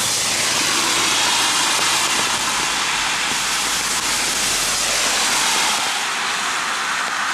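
Cars passing on a rain-soaked road: a steady hiss of tyres on wet asphalt, throwing up spray, over falling rain.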